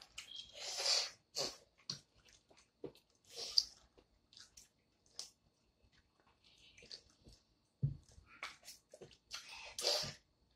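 Eating boiled peanuts up close: soft, wet shells split open by hand and kernels chewed, heard as scattered small clicks and short hissy sucks as the brine is sucked from the shells.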